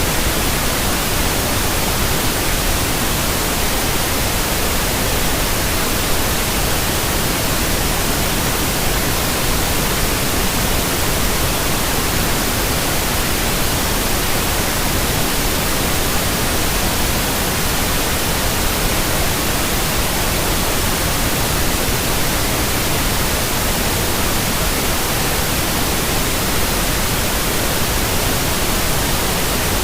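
Steady, unchanging white noise, an even hiss spread across all pitches, played as a baby sleep sound.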